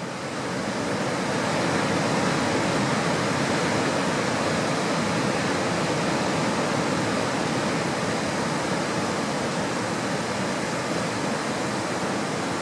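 Steady rushing of water, a sea-surf ambience, held at an even level with no separate waves rising and falling. A faint steady hum runs underneath.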